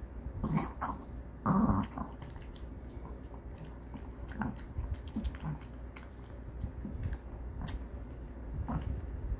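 Maltese dog eating dry kibble from a stainless steel bowl: small crunches and clicks at an irregular pace. Two short, louder sounds come in the first two seconds, the second the loudest.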